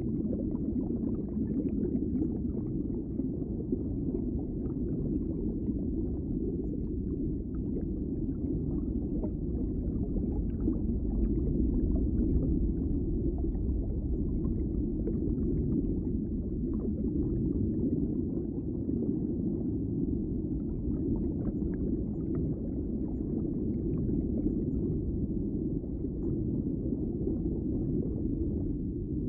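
Underwater ambience: a steady, muffled low rumble of moving water, with faint scattered crackles above it.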